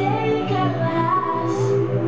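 Zouk dance music with a woman singing over a steady pulsing bass.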